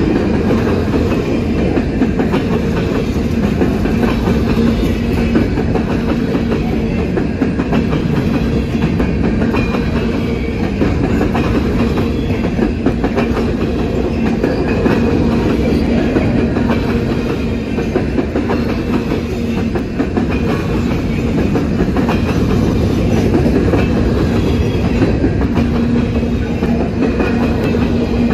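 Covered hopper cars of a long freight train rolling past over a level crossing: a steady heavy rumble with a rapid, continuous clatter of steel wheels on the rails.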